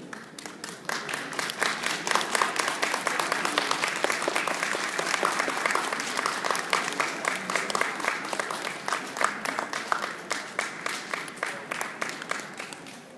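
Audience applauding, a dense patter of hand claps with some sharp, close claps among them. It starts about a second in, holds strongly, then thins and tapers off near the end.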